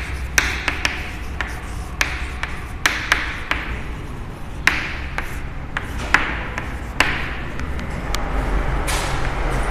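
Chalk writing on a chalkboard: a run of sharp taps and short scratchy strokes as a word is written, dying away about seven seconds in.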